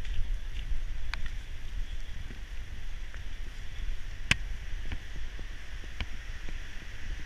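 Storm wind buffeting the microphone in a low rumble over a steady rushing hiss, with a few sharp knocks, the loudest about four seconds in.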